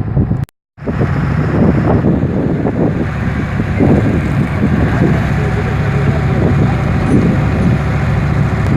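Boat engine running steadily under heavy wind noise on the microphone; the sound cuts out completely for a moment about half a second in.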